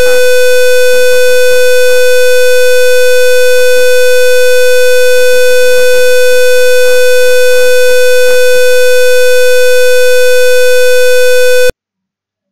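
Simulated buzzer in a Proteus ISIS circuit simulation, switched on by the PIC18F4520's second-button routine, sounding one loud, steady, harsh electronic tone through the computer's audio. It cuts off suddenly near the end when the simulation is stopped.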